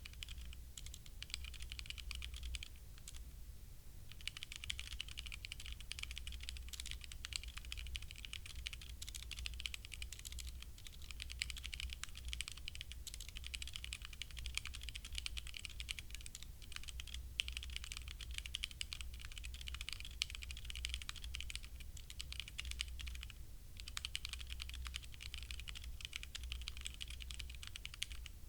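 Continuous typing on a HyperX Alloy Origins Core mechanical keyboard with HyperX Red linear switches, a rapid stream of key clicks with two short pauses, one a few seconds in and one near the end.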